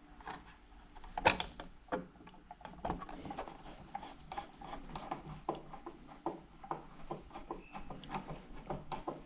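Irregular small clicks and taps of hands folding the wires and pushing the outlet into the electrical box, with one louder click about a second in.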